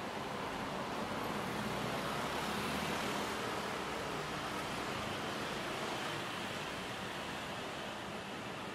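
Street traffic noise, with a motor vehicle passing close: a low engine rumble that swells to its loudest about three seconds in, then fades.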